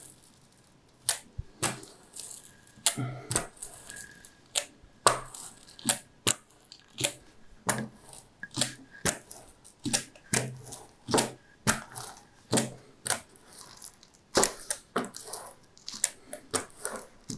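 Rubber hand roller worked back and forth over a sheet of paper, the paper crackling and rustling in short strokes about one to two a second, as a glued canvas is pressed down onto its board.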